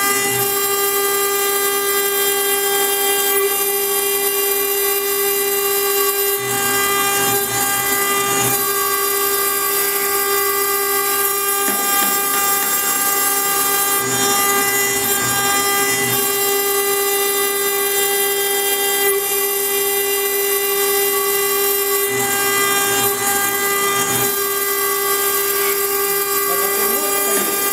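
CNC-1218 router spindle milling a wet stone slab under water coolant: a steady whine with many overtones over a hiss.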